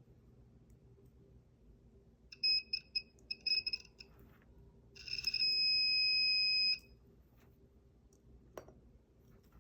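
A multimeter's continuity beeper sounding as its probes are touched to the contacts of a cigarette-lighter socket: several short broken chirps, then one steady beep of nearly two seconds. A single click follows near the end.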